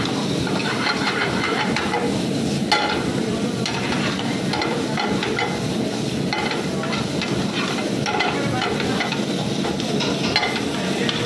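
Diced vegetables sizzling and hissing in a wok over a high gas flame as they are stir-fried and tossed, with the metal ladle scraping and clinking against the pan; one sharp knock about three seconds in.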